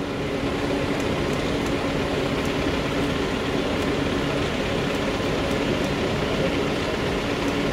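An ambulance engine idling, a steady low hum that does not change, under a constant rushing background noise.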